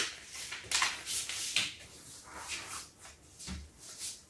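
Sheets of square paper rustling and being creased as they are folded into triangles and smoothed flat against a table top. Several brushing strokes in the first couple of seconds, fainter after that.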